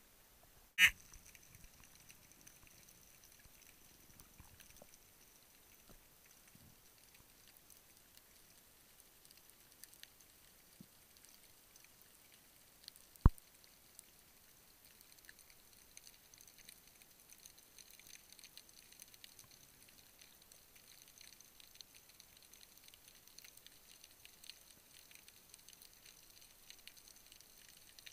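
Underwater sound through a diving camera: a faint, constant crackle of tiny clicks, with a sharp knock about a second in as the camera goes under and a single loud, sharp click about 13 seconds in.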